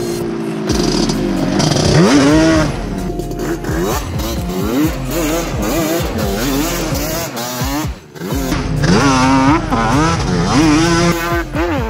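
Yamaha Banshee 350's twin-cylinder two-stroke engine revving up and falling back again and again as the quad is ridden hard on dirt. The revs drop off briefly about eight seconds in, then climb again.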